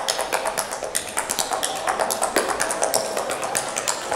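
Quick, irregular stamps and taps of a solo dancer's shoes on a wooden dance floor, several a second, with music underneath.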